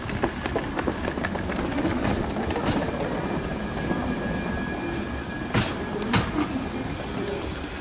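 Manchester Metrolink M5000 light-rail tram passing close by on the rails, a steady rumble of wheels with a faint high whine. Its wheels give two sharp clacks about half a second apart, a little over halfway through, as they cross rail joints or points.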